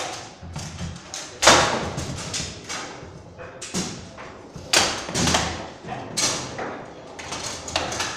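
Foosball in play on a Bonzini table: irregular sharp knocks and clacks of the ball being struck by the figures and hitting the table walls, with rods knocking in their bearings. The loudest hits come about a second and a half in and again near five and six seconds.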